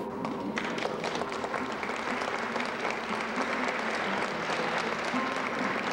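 Crowd applauding, many hands clapping together, beginning about half a second in.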